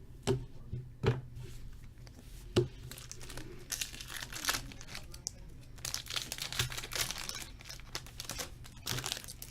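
A foil trading-card pack being torn open and its wrapper crinkled. A few sharp clicks come first, in the opening seconds, then a long stretch of crackling wrapper.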